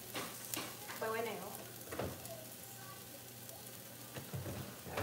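Green curry paste sizzling in oil in a frying pan, a steady hiss, with a few sharp clicks and knocks.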